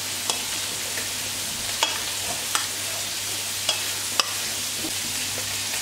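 Drained pasta being tossed with oil in a stainless steel bowl, the utensil clicking against the metal several times, over a steady sizzle of vegetables frying in a pan.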